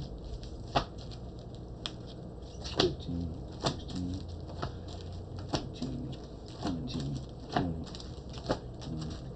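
Comic books in plastic bags being handled and stacked one by one: sharp crinkly snaps and taps of the plastic, roughly one a second. Soft, short, low pitched calls come now and then between them.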